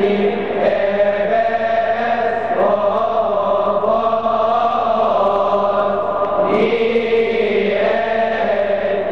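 Male choir of Coptic deacons chanting a hymn in unison, holding long notes that move slowly up and down in pitch; a new phrase starts about six and a half seconds in.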